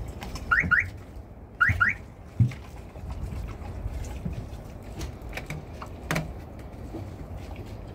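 Empty plastic water jerrycans being handled, with scattered clicks and a few dull knocks. In the first two seconds come two quick pairs of short rising chirps.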